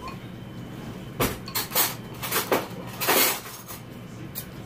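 Chopsticks knocking in a bowl and a person slurping ramen noodles from it: a string of short, noisy sounds, with a knock about a second in and the longest slurp about three seconds in.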